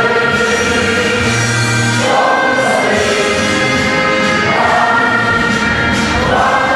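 Many voices singing together in a slow song with long held notes, the chord changing every second or two.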